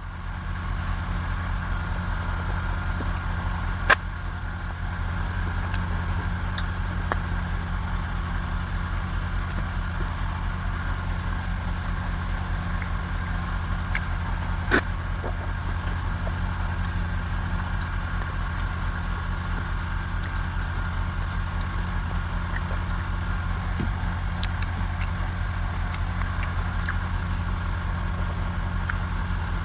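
An engine running steadily: a low even hum with a fast regular pulse. Two sharp clicks stand out, about four seconds in and again about fifteen seconds in.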